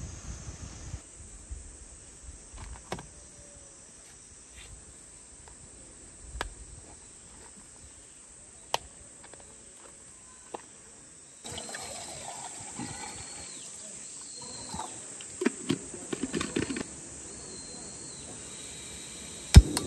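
Small clicks, taps and handling noises of camp-cooking gear over a quiet outdoor background, with faint high chirping in the second half. A sharp, loud click near the end comes as the gas canister is fitted to the backpacking stove.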